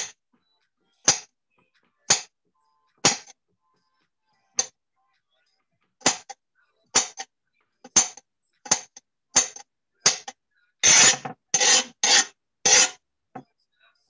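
Kitchen knife mincing a garlic clove on a cutting board: single sharp chops about a second apart, then quicker, heavier chopping near the end. Heard over a video call, with silence cut in between the chops.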